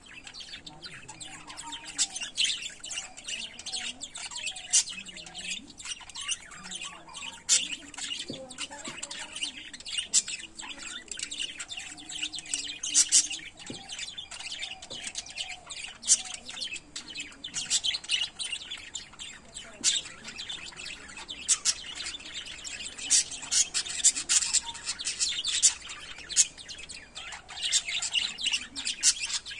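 Caged lovebirds chirping and squawking continuously: many short, sharp, high calls overlapping without a pause.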